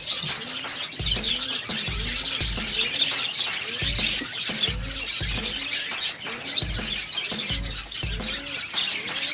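Many birds chirping and tweeting in quick, overlapping calls, over music with a steady low beat about twice a second.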